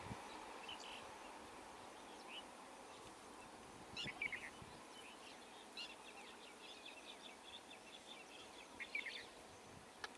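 Small birds chirping: quick descending runs of notes three times, and a fast series of short notes in between, over faint steady background noise. A faint low rumble from a receding electric local train fades out over the first few seconds.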